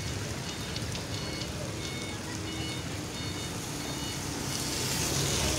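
Steady roadside traffic noise, growing louder near the end.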